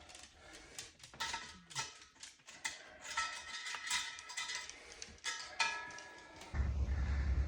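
A freshly lit fire crackling and popping, with sharp irregular clicks, some of them ringing briefly like metal. About six and a half seconds in it gives way abruptly to a steady low rumble.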